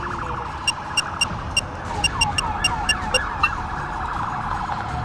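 Several sirens wailing at once, their pitches sweeping up and down over one another. Over them, a run of about a dozen short, high electronic beeps comes in under a second in and stops about three and a half seconds in.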